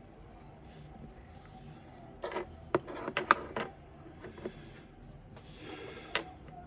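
Light plastic clicks and scrapes as the opened torso of a vintage Talking Barbie is handled: a run of sharp clicks about two to four seconds in, then a shorter scrape ending in a click near the end.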